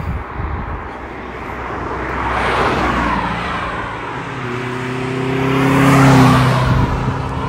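Honda Civic Type S FN1 with the 1.8 litre four-cylinder engine and an exhaust that has had its centre silencer removed, driving past close by. Its engine note swells to its loudest about six seconds in and fades as it goes by. Another car passes a few seconds earlier.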